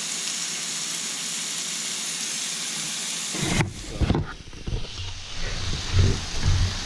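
Chunks of deer meat frying, a steady sizzle. A little over halfway through the sound changes abruptly and low thumps and rumbling come in.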